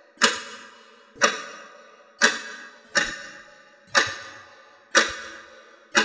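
Quartz alarm clock ticking once a second, six sharp ticks in a row, each ringing out briefly before the next.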